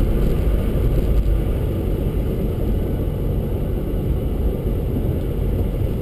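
Steady low rumble of a car driving on slushy, snow-covered road, heard from inside the cabin: engine and tyre noise.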